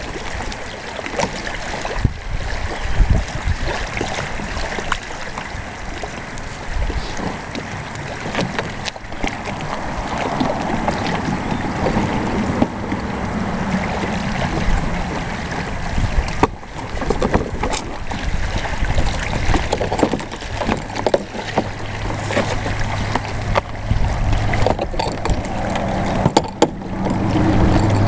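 Wind rumbling on the microphone, with scattered clicks and scrapes from the stiff plastic hull panels of a folding hard-shell kayak being bent and fitted by hand. About two-thirds of the way in, a low steady hum comes in.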